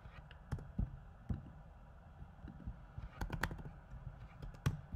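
Computer keyboard typing: scattered single keystrokes, with a quick run of several about three seconds in and another sharp click near the end.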